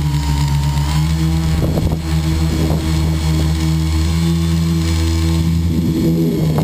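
Radio-controlled model airplane's engine heard close up from on board, running at a nearly steady pitch, with wind rushing past the microphone.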